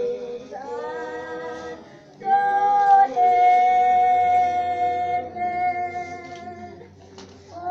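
Slow singing, mostly women's voices, in long held notes: a few notes change pitch in the first three seconds, then one note is held for more than three seconds before it fades out near the end.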